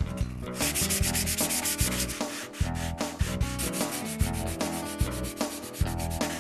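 320-grit sandpaper, folded to fit the contours, rubbed in quick back-and-forth strokes over dried spackle on polystyrene cornice molding, smoothing the joints.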